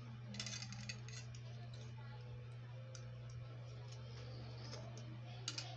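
Metal spoon clicking against a plastic cereal bowl while Coco Crunch is scooped and eaten: a quick run of clicks just after the start, scattered light ticks, and two more clicks near the end, over a steady low hum.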